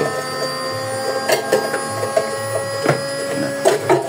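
Homemade feed chopper built into an old washing-machine cabinet and driven by a washing-machine motor, running with a steady hum, with a few knocks.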